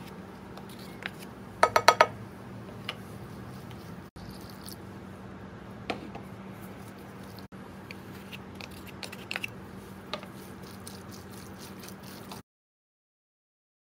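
Wooden spatula stirring and tossing noodles with chicken and vegetables in a pan: soft squishing over a steady low hum, a quick run of four ringing clinks of the utensil against the pan about two seconds in, and a few lighter knocks later. The sound cuts off suddenly shortly before the end.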